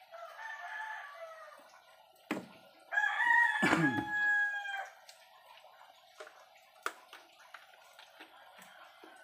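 A rooster crowing twice: a fainter crow in the first second or so, then a louder, longer one about three seconds in. A knock comes just before the louder crow, over a steady hum.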